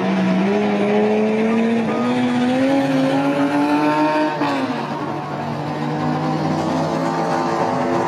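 First-generation Mazda RX-7 race car's rotary engine pulling hard, its note climbing steadily as it accelerates, then falling away sharply about four and a half seconds in. A second car's engine runs lower underneath.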